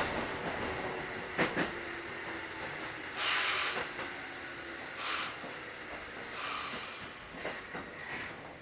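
Running sound heard inside a Kotoden 1080-series electric train car (ex-Keikyu 1000 series): steady rolling noise with a couple of sharp clicks from the rails about a second and a half in, then three short bursts of high hissing or squealing from the running gear.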